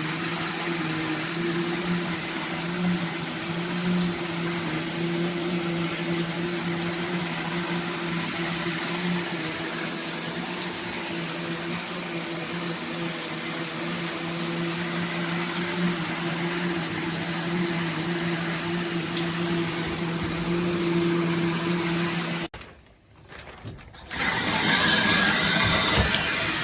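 Shower head spraying water steadily over a steady low hum. About 22 seconds in the spray cuts out for a second or two, then comes back louder and hissier.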